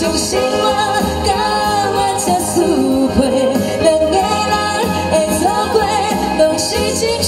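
Live band performance of a Taiwanese Hokkien pop ballad: a woman sings the lead melody into a microphone, backed by saxophone and keyboard with a backing singer.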